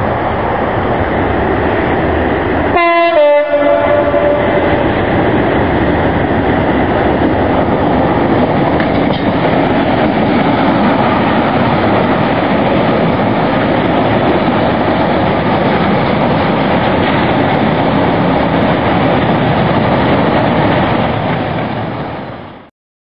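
A Class 66 diesel freight locomotive passing close by with a train of tank wagons. It gives a short horn blast about three seconds in, then there is a loud steady rumble of the diesel and the wagons running past, which cuts off suddenly near the end.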